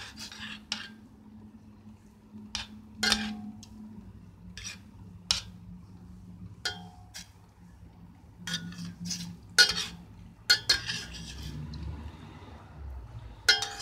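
Long metal spoon stirring chicken pieces in a stainless steel pot of water, clinking against the pot's sides at irregular intervals, some knocks ringing briefly. A low steady hum runs underneath.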